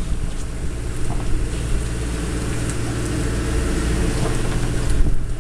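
Boat engine running steadily, a low, even hum.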